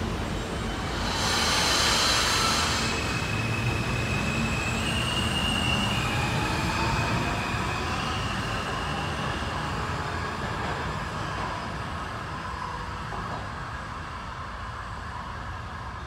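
R160 subway train pulling out of an underground station: a loud hiss about a second in, then a high whine that steps in pitch as the train accelerates, and a rumble that fades as it runs off down the tunnel.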